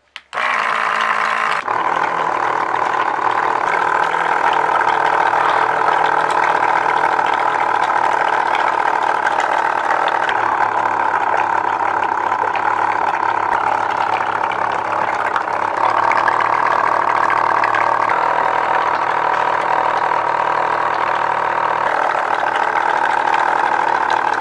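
Small DC motor driving a homemade bottle-cap air pump, switched on about a third of a second in and running steadily with a high whine. Air from the pump bubbles and splashes in a glass of water.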